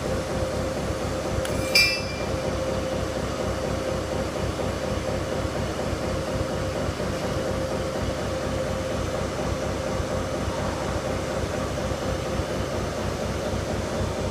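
Orbital welding machine running with a steady buzzing hum, a fine rapid flutter and one held tone. A short metallic clink comes about two seconds in.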